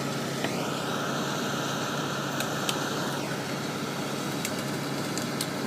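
Crane engine running steadily under load. A mechanical whine rises about half a second in, holds, and drops away just after three seconds.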